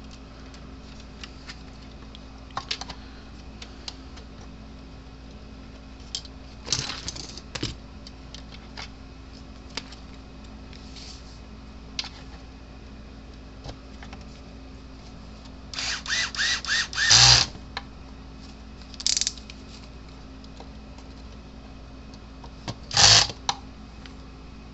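Irregular light clicks and taps of small parts being handled while a fence charger is reassembled, with a short burst of louder clicking about sixteen seconds in and one sharper knock near the end, over a steady low hum.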